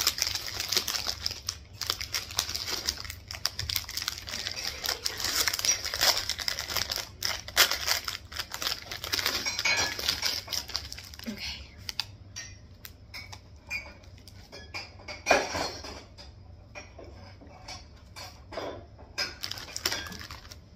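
Plastic snack wrapper crinkling and rustling as it is handled and opened, dense for about the first twelve seconds, then sparser crackles with one louder crackle partway through.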